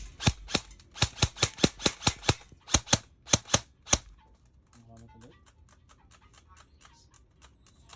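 SRC SR4 Sportline M4 airsoft electric gun firing on semi-auto: a quick string of about fifteen sharp shots, three to four a second, with the trigger pulled rapidly. They stop about four seconds in.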